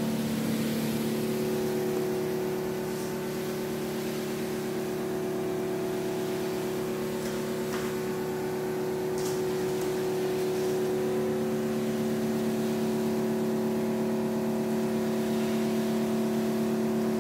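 Portable hot-water extraction machine running steadily, its vacuum and pump motors giving a constant drone while the drapery wand is worked over sheer curtains. A few faint ticks are heard now and then.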